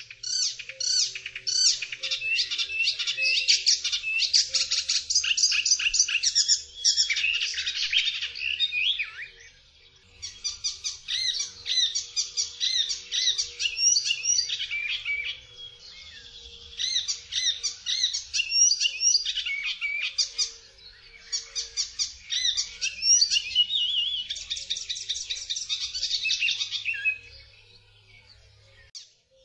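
Icterine warbler singing: long phrases of rapid, varied notes, broken by short pauses about ten and sixteen seconds in and near the end.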